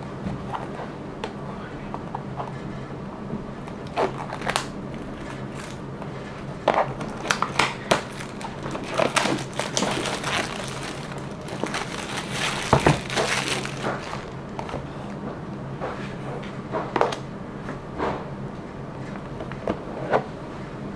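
Hands handling speedcube packaging and plastic parts: irregular clicks, taps and crinkling, busiest in the middle, over a low steady hum.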